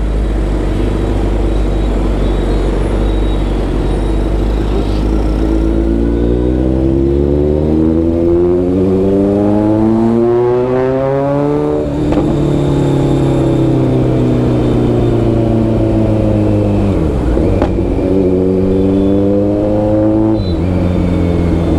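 Kawasaki Z900's inline-four engine with a loud full-system exhaust, ridden on the road. The engine note climbs steadily for several seconds as the bike accelerates, then falls away as it slows. Near the end it dips briefly and climbs again.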